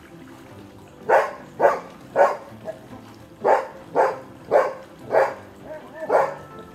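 Golden retriever barking repeatedly: a quick run of three barks about a second in, then after a short pause about five more, roughly two a second.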